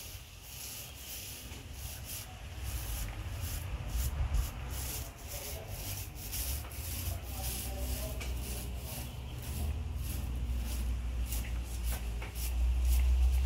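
Paintbrush bristles brushed back and forth over the gate, a repeated scratchy rubbing stroke after stroke, over a low rumble that gets louder near the end.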